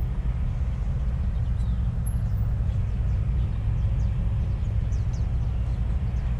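Steady low rumble of wind buffeting an action-camera microphone while riding an electric scooter, with a few faint high chirps over it.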